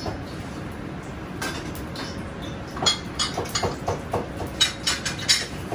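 Metal ladle clinking against a wok and metal bowls: a quick, uneven run of sharp clinks starting about three seconds in, over the steady rush of a gas wok burner.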